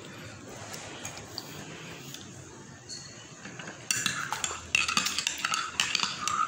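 Cutlery and dishes clinking and clattering on a table, a quick run of sharp knocks with short ringing, starting about four seconds in.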